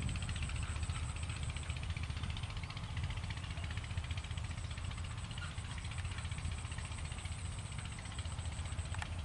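A tractor engine running steadily at a distance while it ploughs a field, heard as a low rumble, with a thin, high, pulsing buzz over it throughout.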